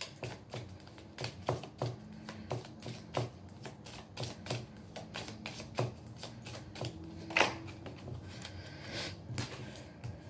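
A deck of tarot cards being shuffled by hand: a steady, irregular run of short card slaps and clicks, with one louder slap about seven and a half seconds in.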